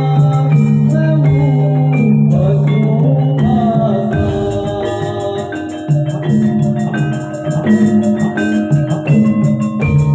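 Javanese gamelan music for a jaranan horse dance: bronze metallophones and gongs ring out steady struck notes, with a singer's voice sliding in pitch over them in the first few seconds.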